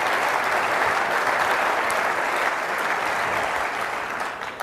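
Audience applause from a large hall crowd, steady, then dying away near the end.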